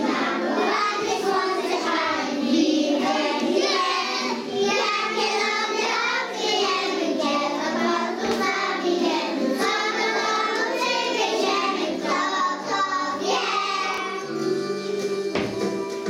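A group of young children singing together in unison over recorded backing music.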